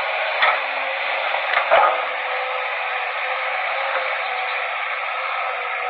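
Steady, thin, radio-like hiss with two short knocks, about half a second and just under two seconds in.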